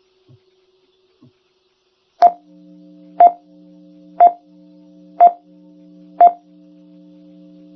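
Countdown beeps: five short, sharp electronic beeps one per second, starting about two seconds in, with a steady low drone of several tones sounding under them after the first beep.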